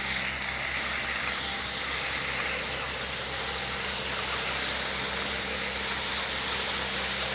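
Finn bark blower truck running steadily: a low diesel engine hum with a steady rushing hiss of air and mulch blowing out through the hose.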